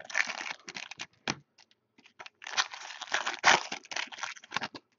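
Foil wrappers of Topps Chrome football card packs being crinkled and torn open by hand, in two spells of crinkling with a sharp click in between.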